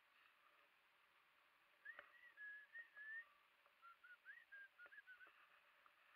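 Near silence broken by faint, short high chirps: a run of them about two seconds in and another between about four and five seconds.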